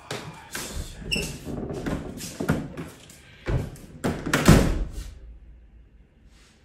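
A door being worked and shut: a string of knocks and scrapes, with the loudest bang about four and a half seconds in.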